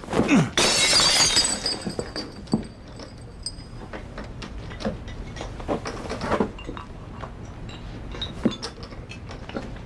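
Glass shattering about half a second in, loud with bright ringing, just after a man's short falling cry. Scattered small clinks and knocks follow.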